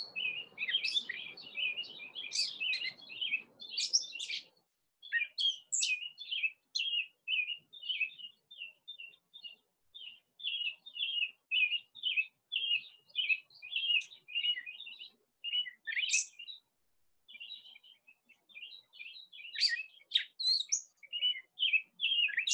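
Small birds chirping and twittering almost without break, in quick runs of short high notes with brief pauses.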